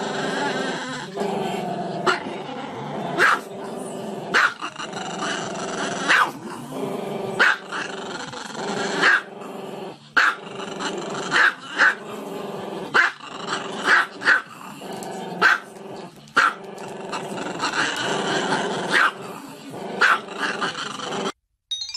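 Small black-and-tan dog, muzzle raised, giving a long run of low, growling vocalizing broken by sharp barks about once a second.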